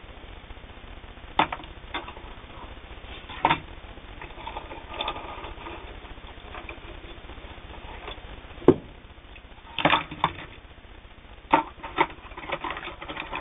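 Small sewing-machine accessories being handled and packed into their box, giving a scattered series of sharp clicks and knocks, the sharpest a little before the nine-second mark.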